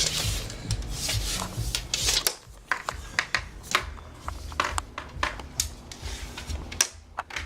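Rubbing and scraping with scattered sharp clicks, a steady scratchy rubbing for about the first two seconds, then irregular short clicks and scrapes.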